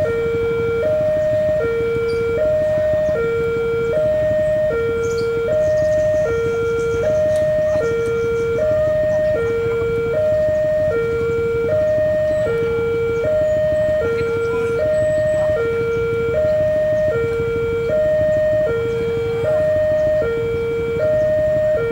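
Indonesian railway level-crossing alarm siren sounding continuously: an electronic two-tone signal alternating between a higher and a lower tone, each held about three quarters of a second, warning that a rail vehicle is approaching. A steady low rumble runs underneath.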